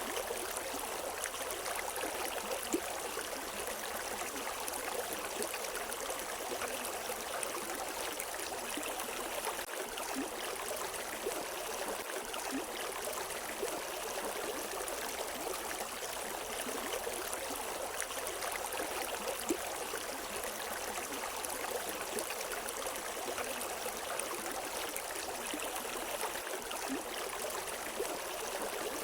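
River water rushing and babbling over rocks in a steady, even flow, with small splashes and gurgles throughout.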